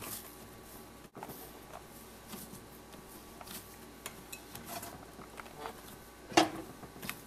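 Hands kneading a firm semolina-and-flour dough in a glass mixing bowl: faint soft pressing with scattered light taps, and one louder knock about six seconds in.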